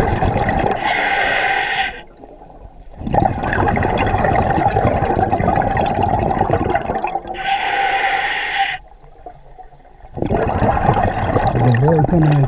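Diver breathing underwater through a diving regulator, twice over: a sharp hiss of inhaling, a short pause, then a long burbling rush of exhaled bubbles.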